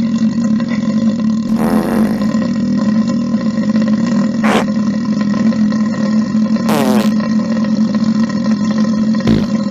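A man belching in one long, steady, low belch, with short higher sounds over it about two, four and a half, seven and nine seconds in, some falling in pitch.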